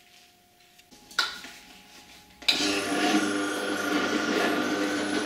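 A vertical slow juicer is switched on about two and a half seconds in and runs with a steady motor hum. A single knock comes a little over a second in.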